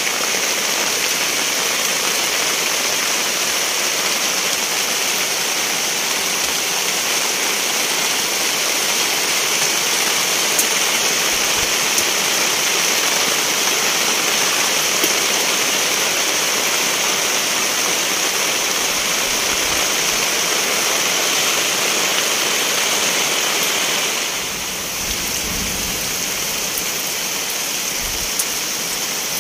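Steady rain falling, an even hiss that drops a little in level about 24 seconds in.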